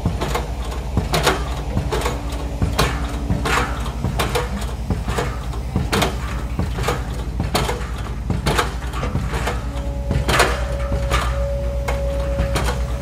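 Heavy piling machinery working: a diesel engine drones steadily under repeated, irregular metallic knocks and clanks. A thin steady whine comes in about ten seconds in.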